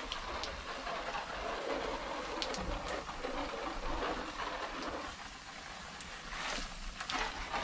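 Water spraying from a garden hose spray-gun nozzle onto seed pots of compost, a steady hissing patter of droplets. It eases off for about a second around five seconds in, then picks up again.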